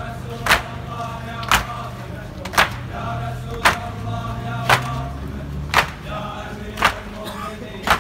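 A crowd of mourners beating their chests in unison (latm), a sharp slap about once a second, eight times, with the crowd's sustained chanting between the strikes.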